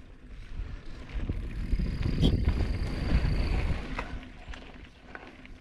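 Mountain bike rolling over the dirt trail close by: tyre noise swells for about three seconds and then fades. A sharp knock comes about two seconds in, along with some rumble from wind on the microphone.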